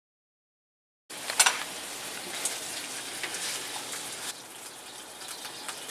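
After about a second of silence, steady sizzling from a hot pan starts abruptly, with a few sharp crackles.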